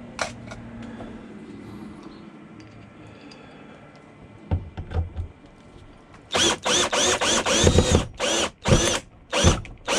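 Power drill driving a screw in a run of short trigger pulses about six seconds in, the motor whine rising at the start of each pulse.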